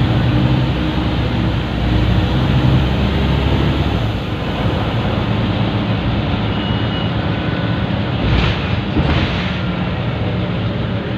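Scania L94UB bus engine and drivetrain heard inside the cabin while underway, pulling strongly for about four seconds and then easing off, over a constant hiss that the uploader suspects comes from a vacuum leak, a turbo leak or an air-brake fault. Two short bursts of noise come near the end.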